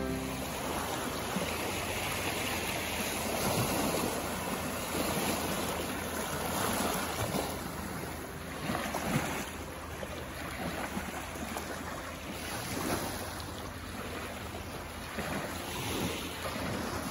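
Small waves washing over rocks and lapping onto a sandy beach, the wash swelling and easing every few seconds.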